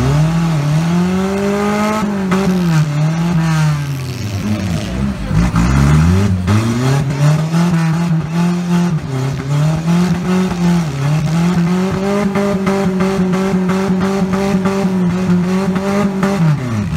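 A demolition derby car's engine revving hard, its pitch rising and falling repeatedly. Near the end it is held high for several seconds, then drops away.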